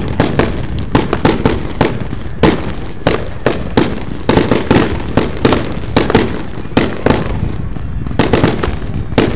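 Aerial fireworks going off in quick, irregular succession, several sharp bangs a second over a constant low rumble.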